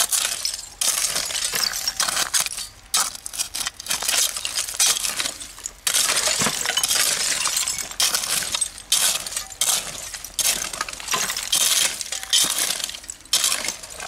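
A shovel chopping and scraping into a dirt bank packed with broken bottle glass, the shards clinking and crunching with each stroke. The strokes are repeated, roughly one a second.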